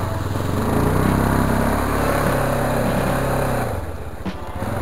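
ATV engine running under throttle on a muddy track. The engine note eases off for a moment about four seconds in, then picks up again.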